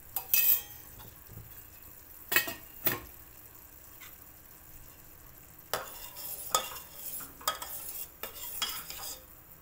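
Steel spoon clinking and scraping against a stainless steel pot while stirring boiling sugar syrup, over a soft steady sizzle. A few sharp clinks come at the start and about two and a half seconds in, then a quick run of stirring strokes from about six seconds until just before the end.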